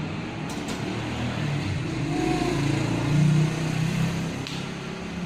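A motor vehicle's engine running on the move, over road and wind noise, getting louder for a moment about three seconds in.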